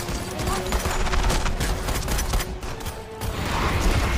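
Action-film soundtrack from a monster-attack scene: music under a dense, rapid barrage of bangs and crashes like gunfire, with a steady held tone beneath.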